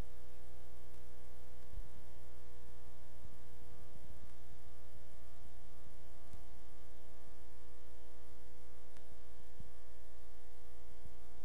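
Steady electrical mains hum, a low buzz that holds constant throughout, on a videotape's audio track.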